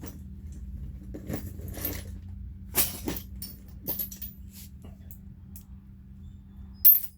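Light metallic clinks and knocks of small metal parts and tools being handled, scattered and irregular, with one sharp, louder click near the end.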